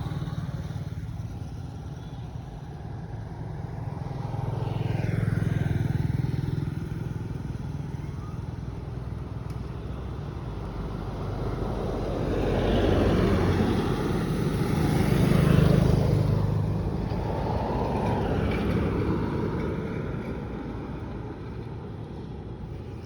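Low engine-like rumble of motor vehicles that swells and fades several times, as if vehicles are passing.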